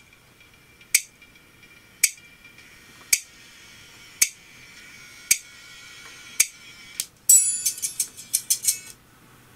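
Music played through a JBL Shock Wave 4T compression horn tweeter with a titanium diaphragm, so only the treble is heard: a sharp tick about once a second, then a quick run of hits about seven seconds in.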